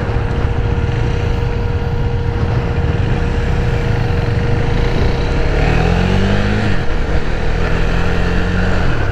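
KTM 390 Duke's single-cylinder engine pulling the bike along the road. About six seconds in the engine note rises and falls once, then holds steady.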